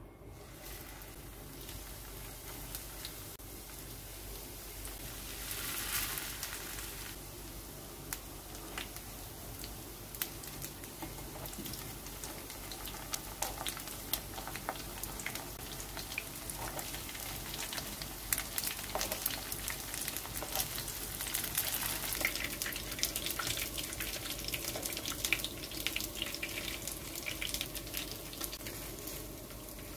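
Breadcrumb-coated shrimp frying in hot oil: a steady sizzle full of small crackles and pops. It swells briefly about six seconds in and is louder through the second half.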